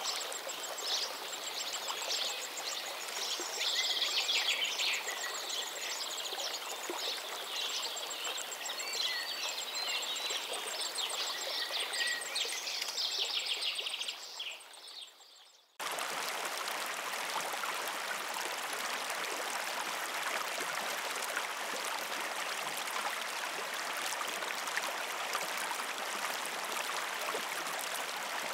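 Birds chirping and trilling over a steady rush of running water, fading out about halfway. Then a steady rush of running water without birds starts abruptly.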